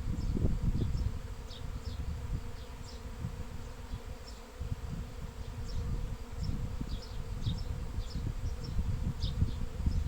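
A honeybee swarm buzzing: a dense, low hum that swells and fades. Many short, high bird chirps sound over it.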